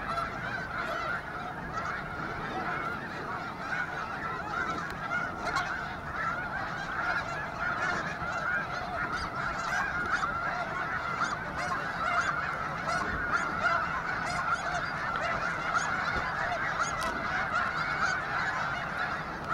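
A huge flock of snow geese on the water calling all together: a steady chorus of countless overlapping honks.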